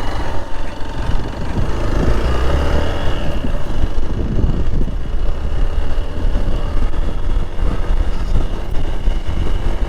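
Hero Xpulse motorcycle engine running steadily while riding a rough off-road trail, with low rumble from wind on the microphone.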